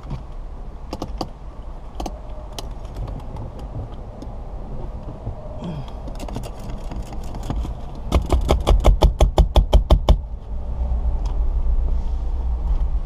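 Wire-type windshield cut-out tool being worked to cut through the urethane bond of a car windshield, with scattered clicks and handling knocks. About eight seconds in comes a fast, even ratcheting run of sharp clicks, about seven a second for two seconds, followed by a steady low rumble.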